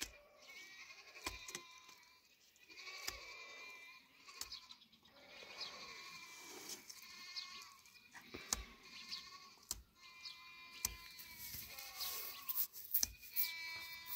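Goats or sheep bleating over and over, many wavering calls, some overlapping, with a few short sharp knocks between them.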